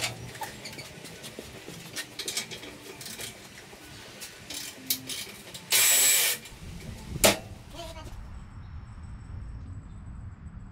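Work noises on a motorcycle in a garage: scattered clicks and knocks, a short loud hiss about six seconds in and a sharp knock just after it. Near the end the sound changes abruptly to a steady outdoor background with insects chirping.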